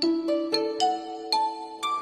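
Background music: a melody of struck notes that ring on, a few notes a second.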